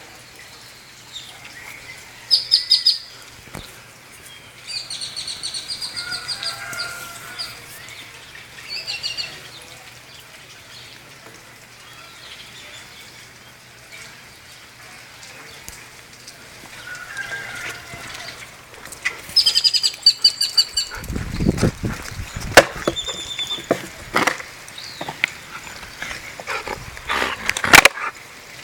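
Small birds chirping in short rapid runs of high notes, several times over. From about two-thirds of the way in, a low rustling and crackling with sharp clicks joins them, ending in one loud click near the end.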